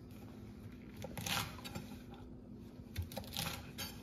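Kitchen knife slicing through a bundle of Chinese long beans on a wooden cutting board: a few crisp, crunchy cuts, one about a second in and a quick run of them near the end.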